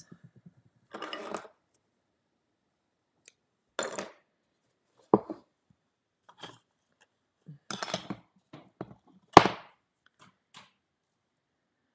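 Scattered light knocks and clatters of weaving tools and yarn being handled at a tapestry loom, with one sharp knock, the loudest, a little over nine seconds in.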